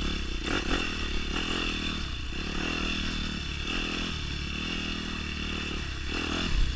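Yamaha YZ250F dirt bike's four-stroke single-cylinder engine running at low revs on a rocky trail, its note dipping briefly and picking back up about once a second as the throttle is worked.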